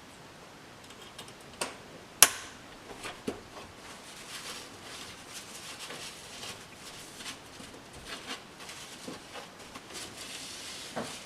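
Sharp clicks and light knocks of metal retaining clips being snapped back onto a headlight housing to hold a glass lens in place, the loudest about two seconds in, followed by a run of small ticks and light rustling from handling the headlight.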